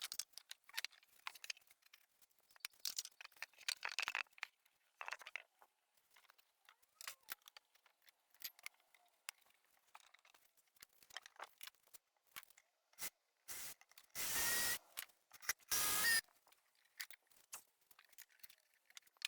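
Scattered light clicks and knocks of wood and screws being handled, with two short runs of a small cordless power tool a little after the middle, the first lasting under a second and the second shorter.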